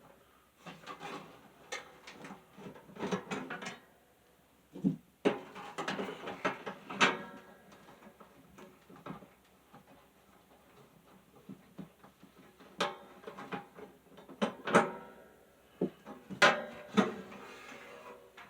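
Irregular clunks, clicks and rattles of a box fan being handled and worked off its stand, in scattered bunches with a quieter stretch midway.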